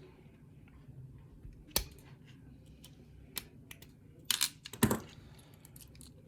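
Scattered small metallic clicks and taps from a challenge lock and its tools being worked by hand, the loudest a sharp click about five seconds in.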